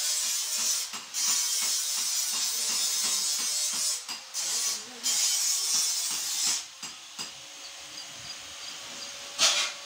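Electric-motor-driven areca nut crusher running, with a steady motor hum under a loud rasping, hissing noise that breaks off briefly several times. The rasping drops away about six and a half seconds in, leaving the hum, and flares once more briefly near the end.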